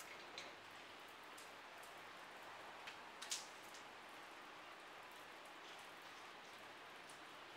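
Near silence: faint room hiss with a few light clicks, the loudest about three seconds in.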